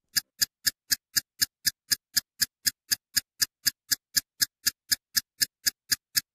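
Ticking sound effect on an end title: sharp, evenly spaced clicks at about four a second.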